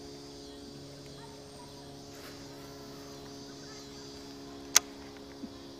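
A faint, steady hum holding one pitch throughout, with a single sharp click near the end.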